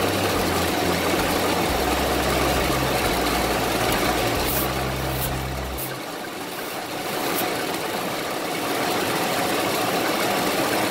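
1989 Ford F-250 pickup's engine idling steadily, heard up close under the open hood, with a few light clicks around the middle.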